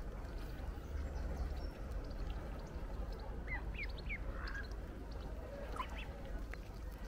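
Waterfowl calling: three quick short calls about halfway through and another near the end, over a steady low rumble of wind on the microphone.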